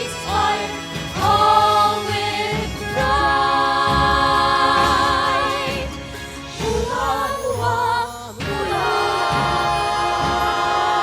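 A choir singing over musical accompaniment: long held notes with wavering vibrato, with a brief break about eight seconds in before the next held note.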